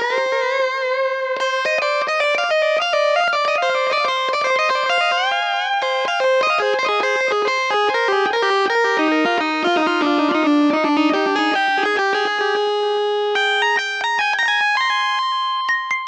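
Instrumental music: a guitar playing a quick melody of plucked notes.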